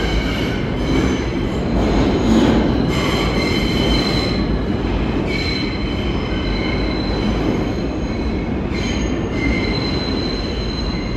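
Kawasaki R160B subway train pulling out of the station into the tunnel: a steady rumble of wheels on rail, with high-pitched wheel squeal that breaks off and returns several times.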